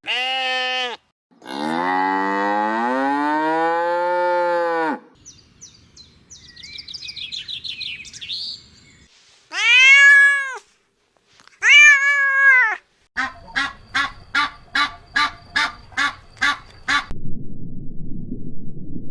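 A run of animal calls: a brief call, then a long drawn-out call with a rise and fall in pitch, faint high chirps, two short rising-and-falling calls, and a quick series of about a dozen short calls, roughly two to three a second. Near the end the calls give way to a low rumbling noise.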